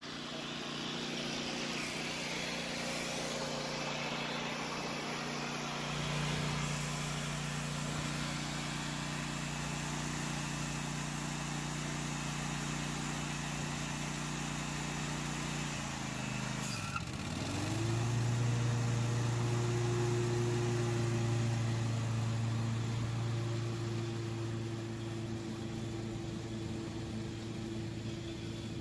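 Gravely ZT HD 52 zero-turn mower running with its blades engaged, mulching dry leaves through its mulch kit: a steady engine drone. About halfway through the engine note dips sharply and comes back, slightly louder.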